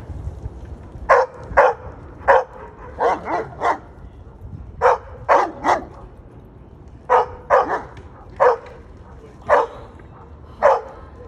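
Large dog barking at a person, about fifteen short, sharp barks, mostly in quick clusters of two or three with pauses of about a second between clusters.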